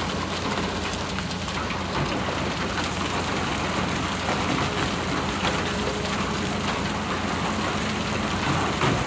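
Sand and rock pouring from a Hitachi excavator's bucket into a dump truck's steel bed, a steady rain-like rush over the low, steady running of the excavator's diesel engine.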